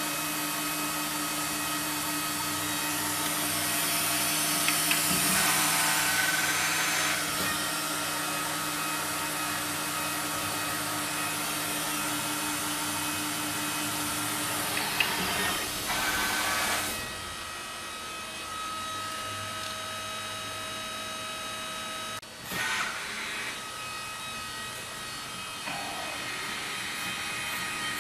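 S3 industrial CNC wood router running: a steady machine hiss with several constant whining tones from the spindle and vacuum system as it works panels. About seventeen seconds in the hiss drops away and the machine gets quieter, with a brief sharp change a few seconds later.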